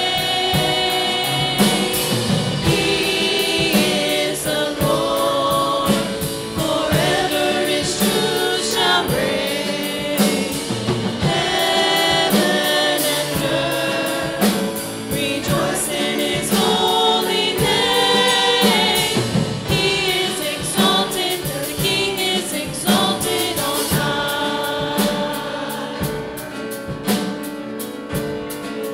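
Church choir and worship team singing a gospel worship song, led by a woman at the microphone, over an accompaniment with a steady beat.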